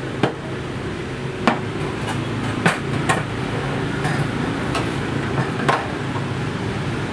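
Small objects being handled and set down on a hard tabletop: a wire birdcage, small plastic pots and figurines, giving about six sharp, separate knocks.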